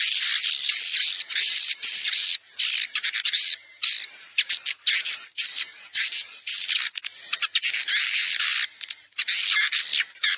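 Swiftlet lure recording: rapid, buzzing chatter of edible-nest swiftlet calls, adult calls mixed with juvenile cheeps, in dense high-pitched bursts broken by brief gaps, with a thin whistling note now and then.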